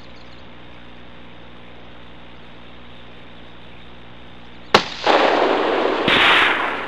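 A single rifle shot from a Savage Model 12 bolt-action in .223 Remington, about three-quarters of the way through, its report trailing off over roughly two seconds.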